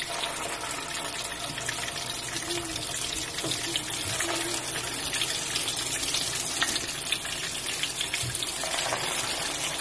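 Egg-dipped beef shami kababs sizzling as they shallow-fry in hot oil: a steady hiss with fine crackle.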